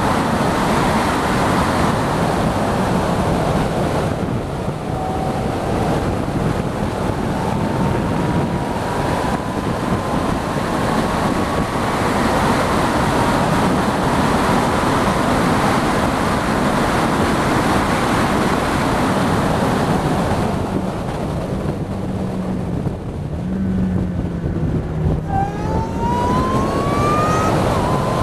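Ariel Atom at speed: wind rushes over the open cockpit and the engine's whine climbs slowly in pitch. Near the end, after it slows for a corner, the engine note rises steeply as it accelerates hard again.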